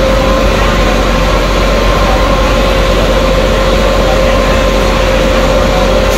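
Fire engine's engine and water pump running steadily: a heavy rumble with a constant whine over it.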